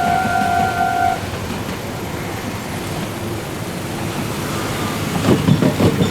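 Level crossing warning bell ringing as a steady electronic tone, which cuts off about a second in as the crossing opens. Then a low rumbling noise, growing louder and more uneven near the end.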